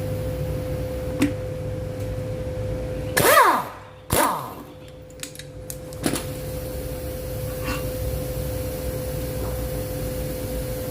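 Steady motor hum, broken about three and four seconds in by two short bursts of a power tool, each dropping in pitch as it spins down, with a single click about a second in.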